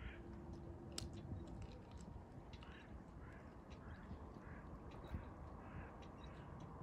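A duck quacking: one short call at the start, then from about two and a half seconds in a run of short quacks, about two a second, over a low steady rumble.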